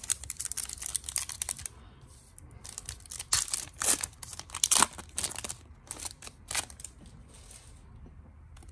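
Foil wrapper of a Topps baseball card hobby pack being torn open and crinkled by hand: a rapid run of sharp crackles and rips, loudest about three to five seconds in and thinning out near the end.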